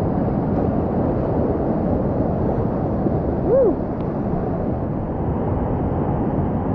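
Whitewater rapid rushing and churning around a kayak running it, a loud steady wash of water. About three and a half seconds in, a brief call rises and falls in pitch over it.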